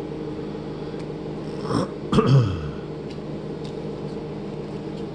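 A short vocal sound from a person, like a throat clearing, falling in pitch about two seconds in, over a steady low hum.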